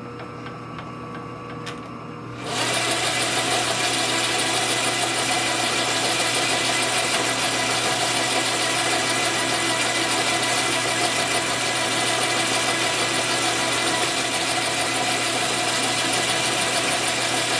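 Metal lathe starting up about two and a half seconds in, then its motor and gearbox running steadily with a constant whine of several pitches.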